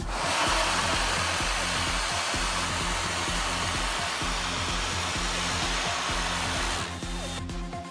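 Electric hand dryer blowing, a steady loud rush of air that starts suddenly and cuts off near the end; it is being used to spin a fidget spinner up to high speed.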